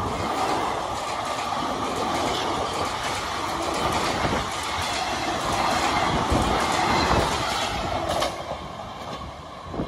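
Tebhaga Express passenger coaches rushing past at speed, wheels clattering over the rail joints under a steady loud rush of noise. The sound drops off suddenly near the end.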